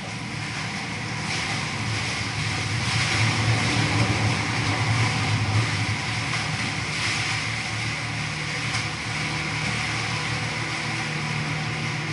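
Canal tour boat's engine running steadily under way: a low hum with an even hiss of water along the hull, swelling a little in the middle.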